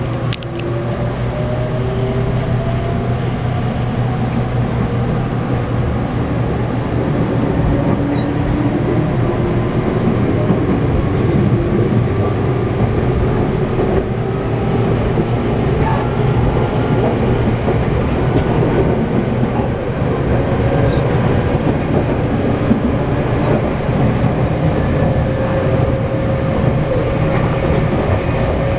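Cabin running sound of a resistance-controlled Meitetsu 6000 series electric train pulling away from a station. The DC traction motors and gears whine, several tones climbing slowly in pitch as it gathers speed over a steady low hum.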